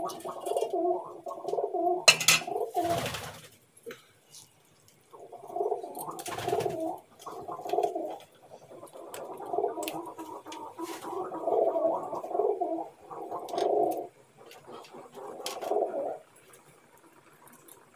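A pigeon cooing in repeated low bouts of one to several seconds with short pauses between them. A few sharp clicks and a heavier knock come about two to three seconds in, and another knock about six seconds in.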